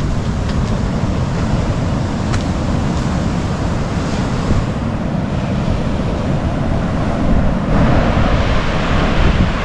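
Surf from a bigger-than-usual swell breaking on a sandy beach: a steady wash of waves, with wind buffeting the microphone. The surf grows louder about eight seconds in.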